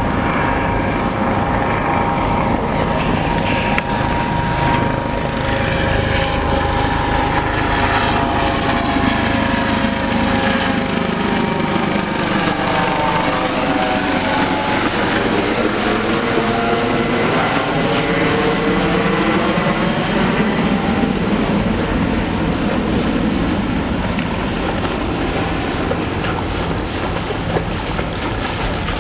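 A low-flying aircraft passes overhead with a loud, steady engine drone. Its tone sweeps down as it comes over, about halfway through, and sweeps back up as it moves away.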